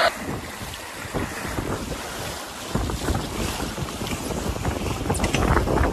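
Wind buffeting the microphone over the rush and splash of water along the hull of a Contessa 26 sailboat heeled under sail, growing louder about halfway through.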